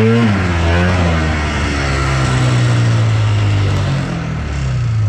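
Two-stroke engine of a 1980 Polaris TX 340 race snowmobile running at low speed. The revs rise and fall once at the start, then hold steady and ease off near the end. The sled is losing power: the owner puts it down to a wrongly set carburetor float pushing fuel out of the overflow.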